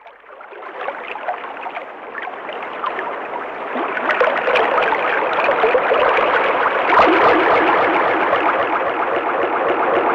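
Sea waves rushing, a sound effect for the ocean, swelling over the first few seconds and then staying loud.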